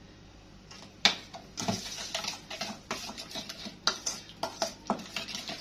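Metal spoon stirring a thick marinade in a stainless steel bowl, scraping and clinking against the bowl's sides in an irregular run. It starts about a second in, after a quiet moment.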